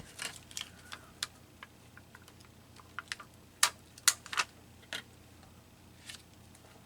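Irregular light clicks and taps of small paper pieces and craft tools being handled on a work table, a cluster of louder taps around four seconds in.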